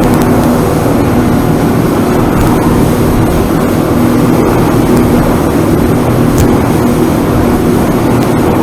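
Jet boat running at speed: a loud, steady engine drone with a constant rushing noise over it.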